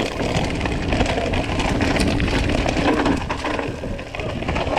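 Orbea Occam TR mountain bike rolling over a rocky dirt trail: tyres crunching on loose stones, with a dense stream of small knocks and rattles from the bike over the bumps.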